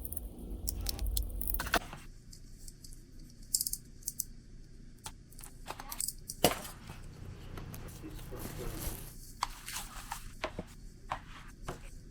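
Light handling sounds of small objects: rustling and tearing with scattered clicks and knocks, the sharpest knock about six and a half seconds in.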